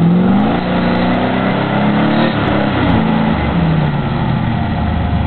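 A 4x4's engine revving hard under load in a mud hole, its pitch climbing and dropping several times as the driver works the throttle.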